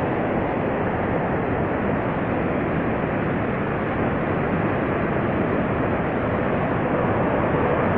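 Steady rushing noise of Niagara's Horseshoe Falls, heard close by: a dense, unbroken wash of falling water.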